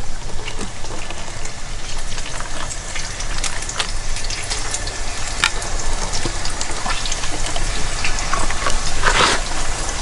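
Hot water pouring from a small aluminium camping kettle into paper cups, a steady trickling fill with a few small clicks and knocks.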